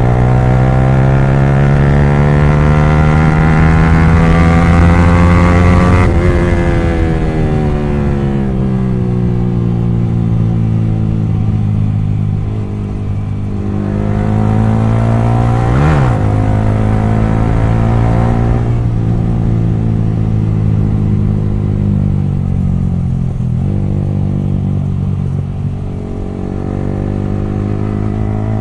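Yamaha R15 V3's 155 cc single-cylinder engine, loud through an exhaust with its dB killer removed, pulling while ridden: the engine note rises for about six seconds, then falls away. It climbs again, dips sharply and recovers about halfway through, then holds a fairly steady pitch.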